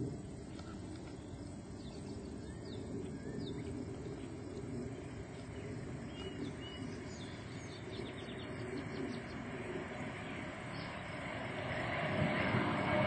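Jet airliner with twin rear-mounted engines on its takeoff climb, heard as a distant rumble that swells louder over the last couple of seconds. Small birds chirp faintly in the middle.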